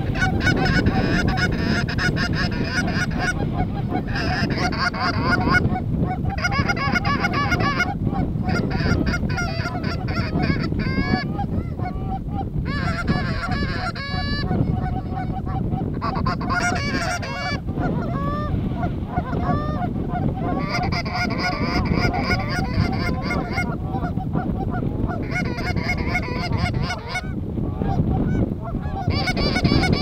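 A flock of Canada geese honking overhead, many calls overlapping almost without pause.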